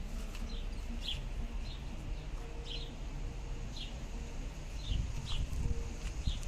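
Bird chirping: short, high, falling chirps repeated about once a second, over a low background rumble.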